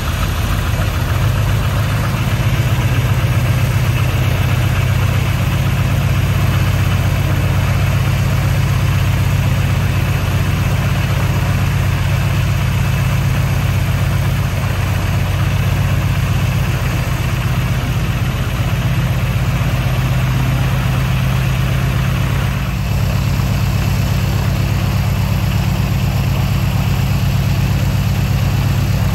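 Boeing PT-17 Stearman's seven-cylinder Continental R-670 radial engine idling steadily on the ground, with a brief dip in level late on.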